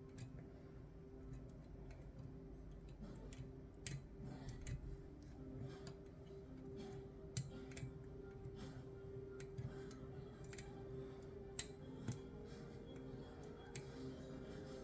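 Faint, irregular metallic clicks from a lever-lock pick and tension tool working the levers of a Chubb GPO No.6 six-lever lock. They come as about a dozen scattered ticks as the levers are lifted and set one by one.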